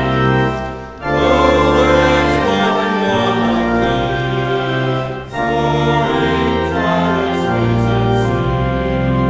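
Church music: a choir singing held chords with organ, the chords changing about a second in and again a little after five seconds.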